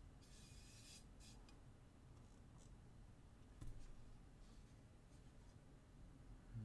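Faint rubbing and handling of an anodized keyboard case as it is turned over in the hands. There is a light knock about three and a half seconds in.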